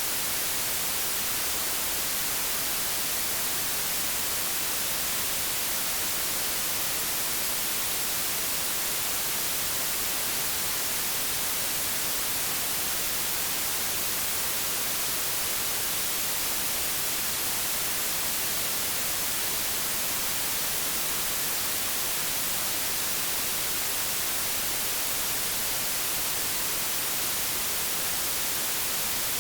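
Generated white noise: a steady, even hiss that never changes.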